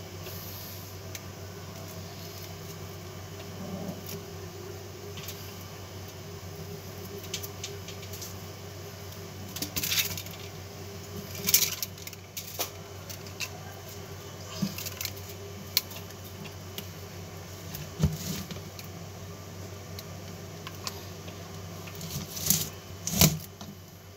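Copper magnet wire being hand-wound onto a toroidal transformer core: the wire is pulled through and around the coil, giving scattered light metallic clinks and scrapes, busier about ten seconds in and again near the end, over a steady low hum.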